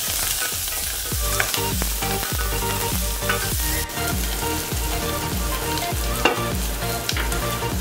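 Chopped shallots, green chilli and curry leaves sizzling in hot oil in a steel pressure cooker while a wooden spatula stirs them, scraping the pan base in quick repeated strokes about three times a second.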